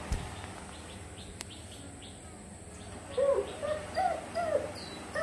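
German Shepherd puppy whimpering: starting about three seconds in, a quick run of short high whines, roughly three a second. It is a tantrum whine from a puppy shut in and wanting out.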